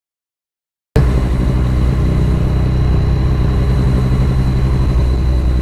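After about a second of dead silence, a Yamaha MT-09 motorcycle's three-cylinder engine with an open Akrapovič exhaust cuts in, running steadily with a low, even rumble.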